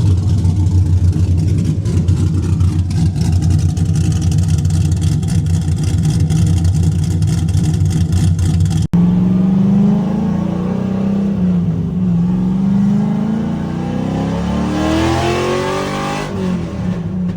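LS-swapped Nissan 350Z's 5.3-litre V8 (LC9) idling steadily at operating temperature, on fresh oil. About halfway through, the sound cuts abruptly to a different recording of an engine whose pitch rises and falls as it revs.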